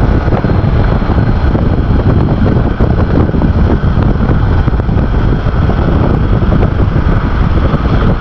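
Loud, steady wind rush buffeting the microphone of a scooter-mounted camera, on a Honda ADV150 riding at about 60 km/h.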